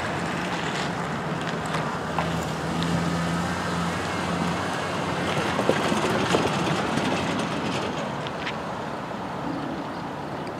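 Pickup truck driving past on the road: engine and tyre noise that builds to a peak about halfway through, then fades.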